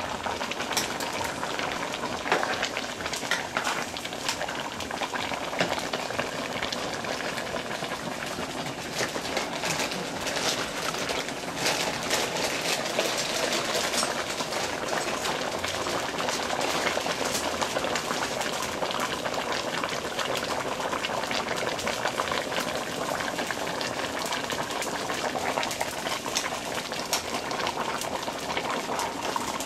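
A large pot of afang soup boiling on the stove: steady bubbling with many small pops.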